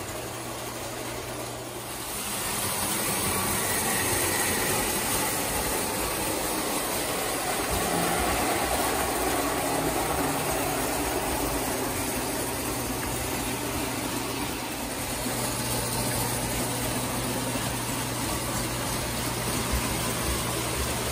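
1934 Lionel tinplate electric work train running on three-rail track: a steady whir and rumble of motor and wheels over a constant electric hum, growing louder about two seconds in.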